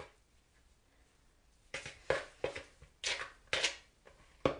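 Rounded-edged table knife cutting and scraping through crumbly biscuit dough against a plastic mixing bowl: about six short scrapes and knocks after a quiet opening second and a half, ending with a sharp knock near the end.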